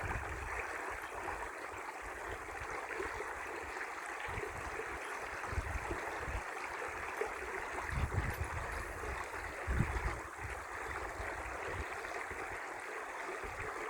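Lake water moving in a steady, even rush. Irregular low wind rumbles on the phone's microphone are strongest about eight and ten seconds in.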